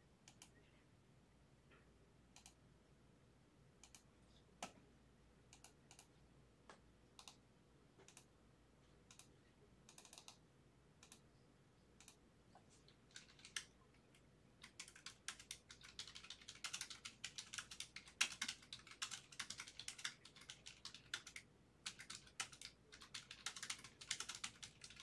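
Faint computer keyboard typing: a few scattered keystrokes at first, then fast, nearly continuous typing from a little past halfway through.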